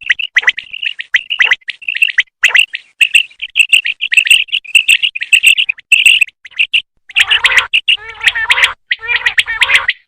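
Female common quail calling: a rapid series of short, high chirping notes, changing about seven seconds in to denser, harsher calls.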